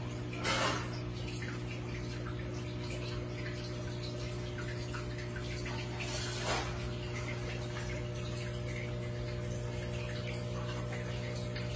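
Aquarium filter pump running with a steady hum and a constant trickle of water, with two brief louder surges of water noise, about half a second in and again about six and a half seconds in.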